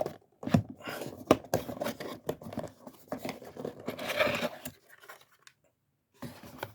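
Cardboard packaging being opened by hand: a seal tearing, with crinkling and sharp clicks and scrapes of cardboard for the first four seconds or so. Then a short pause and a few faint handling noises.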